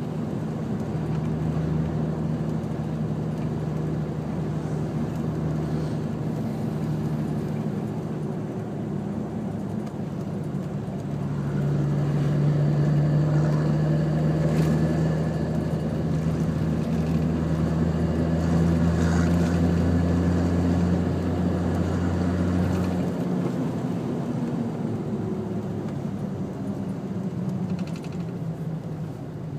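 Nissan Patrol GQ's RD28 2.8-litre straight-six diesel, turbocharged to 13 psi and breathing through a 3-inch exhaust with no mufflers, running while driving, heard from inside the cabin. It grows louder about eleven seconds in as it pulls harder, then eases back about twelve seconds later.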